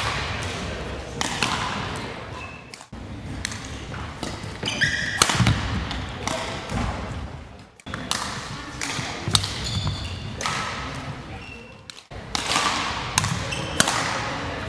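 Badminton rally in an echoing sports hall: sharp racket strikes on the shuttlecock, footfalls and brief shoe squeaks on the wooden court floor, with faint voices in the background.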